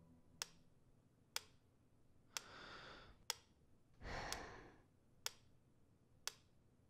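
Wind-up pyramid metronome ticking faintly, about once a second. Between the ticks a man breathes out twice, the second a heavier sigh about four seconds in.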